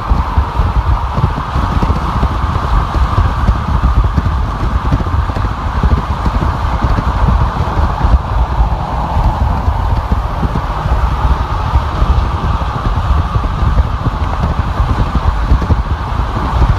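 Steady road and wind noise of a car driving on a freeway: a deep, fluttering rumble under a constant rushing noise, with no breaks or changes.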